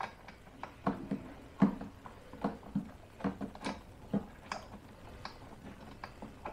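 Light, uneven metallic clicking, about two clicks a second, from a socket wrench on a 5/8 spark plug socket as the spark plug of a Honda EU2200i generator is worked loose.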